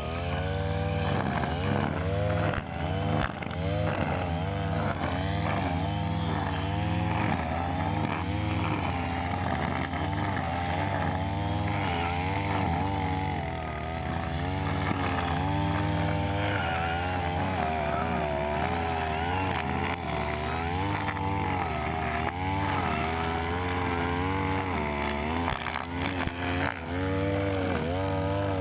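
Brush cutter engine running hard, its pitch rising and falling over and over as the throttle is worked while cutting grass.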